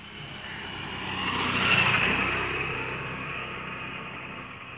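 A motorcycle passing close by: its engine grows louder to a peak about two seconds in, then fades away.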